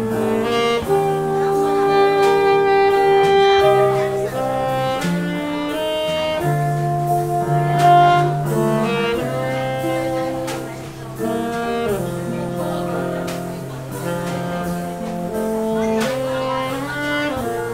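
Live jazz combo playing a slow ballad: a saxophone carries the melody in long held notes over hollow-body electric guitar chords and light drums.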